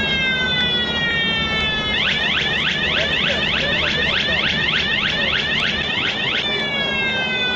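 Electronic alarm siren cycling through its patterns: a slowly falling wail for about two seconds, then fast rising whoops, about four a second, for about four seconds. The falling wail returns near the end.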